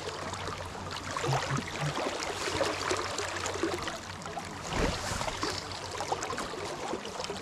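Kenai River current flowing and rushing, a steady wash of moving water, with one short low bump about five seconds in.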